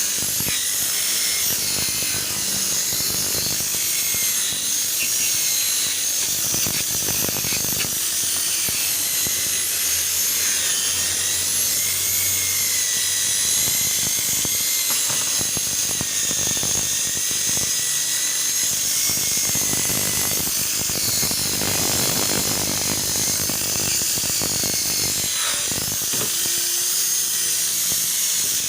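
Electric polishing machine running, buffing a car headlamp's plastic lens. It makes a steady high whine that wavers slightly in pitch as the pad works the lens.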